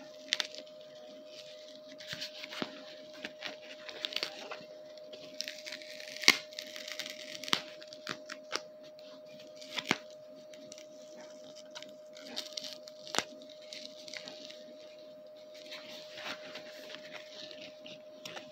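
Sticker backing and plastic being peeled and crinkled by hand in short tearing rustles, with scattered sharp clicks and taps, as a sticker is fitted to a plastic toy championship belt. The loudest click comes about six seconds in.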